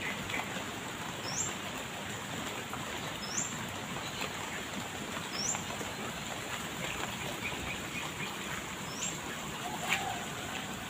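A small bird repeating a short, rising high chirp about every two seconds, four times, over a steady hiss.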